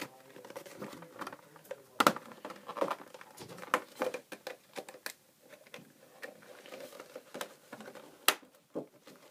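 Packaging being handled while a protective e-reader case is unpacked: crinkling with scattered clicks and taps, and two sharper knocks, one about two seconds in and one near the end.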